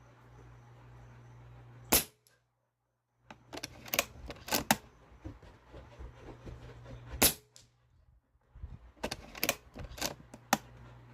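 Snowpeak T-Rex shrouded .22 PCP bullpup air rifle firing about four sharp, short cracks a few seconds apart, with runs of smaller clicks from the action being worked between shots.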